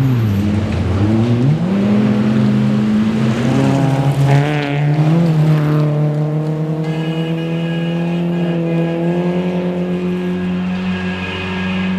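Rally car engine revving hard, the pitch dropping and climbing several times with gear changes and throttle lifts in the first half, then held at high revs.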